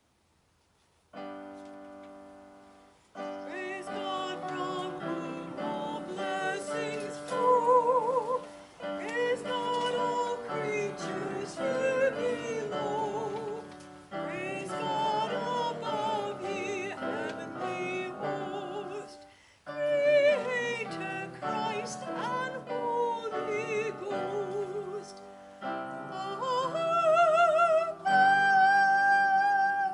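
Music: a singer using vibrato over sustained keyboard chords, sung in phrases with short breaks between them.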